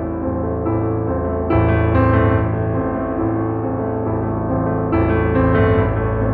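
Background piano music, chords changing every second or so.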